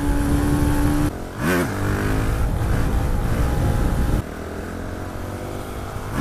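Motard motorcycle engine running under throttle on the road, its note breaking off briefly about a second in and then picking up again. From about four seconds in it runs quieter as the throttle eases.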